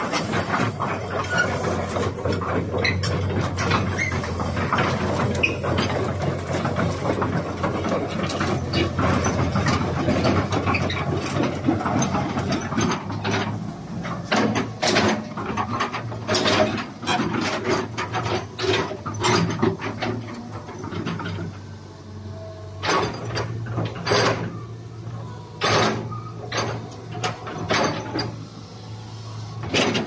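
Hitachi ZX130 crawler excavator's diesel engine running with a steady low hum, under irregular metallic clicks and knocks. The clatter is dense in the first half and thins to separate sharp knocks after about halfway.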